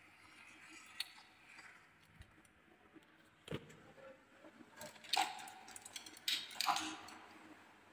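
Plastic toy truck being handled and moved by hand: scattered light clicks and knocks, with a few sharper clatters about five and six and a half seconds in.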